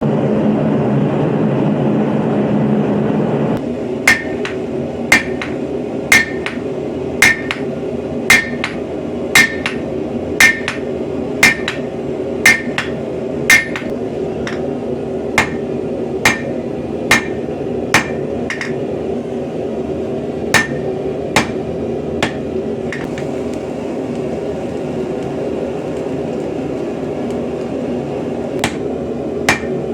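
Hand hammer blows on hot steel over an anvil, forging an axe head. The blows come in runs, steadily about once a second, each with a short metallic ring, over a steady rushing noise. The noise is louder and lower in the first few seconds, before the hammering starts.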